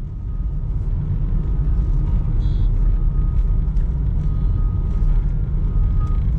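2015 Renault Duster driving at highway speed, heard from inside the cabin: a steady low rumble of engine and road noise.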